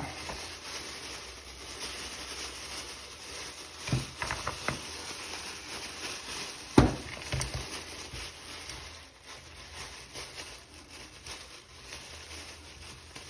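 Handcuffs being worked on during a lock-picking escape: faint rustling and handling noise, broken by a few sharp clicks, a small cluster about four seconds in and the loudest single click about seven seconds in.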